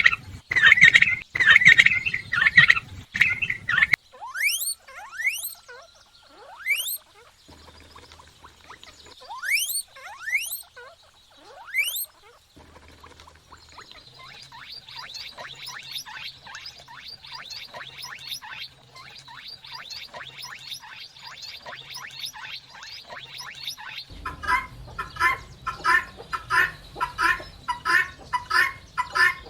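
A run of different bird calls, one after another: quick repeated calls at first, then scattered rising whistled chirps, then a dense high twittering, and near the end a steady series of calls about two a second.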